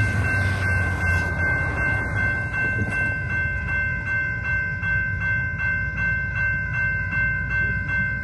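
Railroad crossing warning bell ringing in fast, even strokes as the crossing gates lower, signalling an approaching train, over a low rumble.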